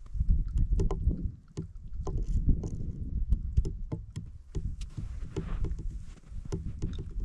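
Wind rumbling on the microphone, with a run of irregular sharp clicks and knocks as ice and slush are worked in a hole in lake ice.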